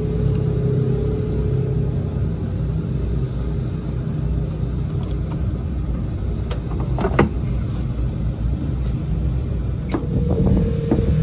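A steady low rumble with a faint hum, like a motor running nearby, and a few short clicks of a wrench working on the underside of a race car, the sharpest about seven seconds in.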